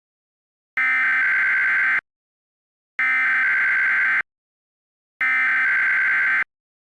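Emergency Alert System SAME header: three bursts of screechy digital data tones, each a little over a second long, with about a second of silence between them. This coded header marks the start of an emergency alert.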